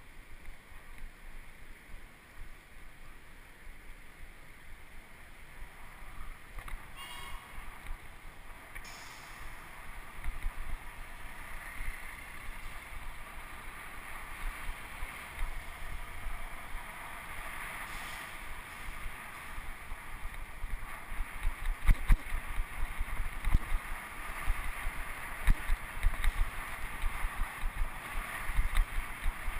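Wind rushing over the bicycle-mounted camera's microphone and road noise while riding along a city street, with low thumps and rattles from the bike going over bumps in the pavement, thicker in the second half.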